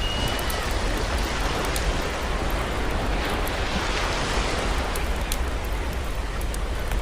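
Campfire crackling with scattered sharp pops over the steady wash of ocean waves, a wave swelling louder about three to four seconds in.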